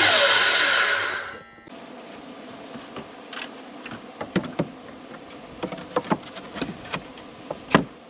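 Miter saw whining as its blade winds down after a cut, falling in pitch and cut off suddenly about a second and a half in. After that come a dozen or so light knocks and taps as a rough-sawn board is held up and fitted against the house's wooden siding.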